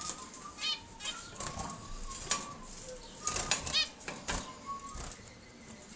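Small cage birds, zebra finches among them, calling in short repeated chirps with a few brief whistled notes, while wings flutter and sharp clicks come off the wire cage.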